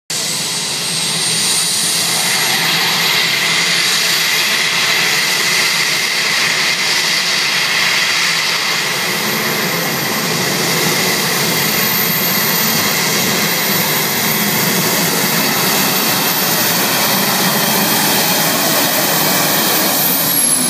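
Modified pulling tractor running at full power as it drags the weight sled down the track, a loud steady engine noise with a high whine that rises over the first few seconds.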